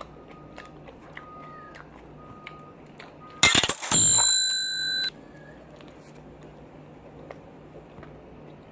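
Smartphone notification alert at high volume: a short clattering burst, then a bell-like ding that rings for about a second and cuts off abruptly.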